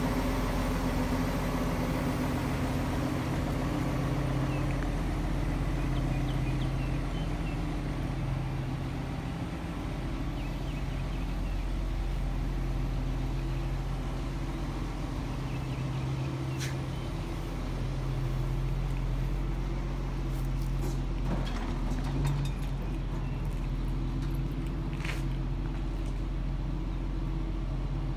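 An engine idling steadily, a low hum whose note swells and fades, with a few faint clicks over it in the second half.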